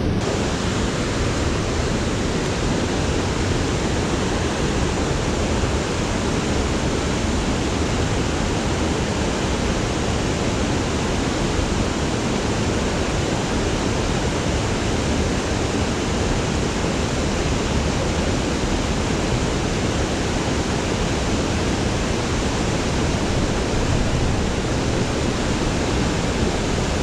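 Steady rush of flowing creek water, an even unbroken noise.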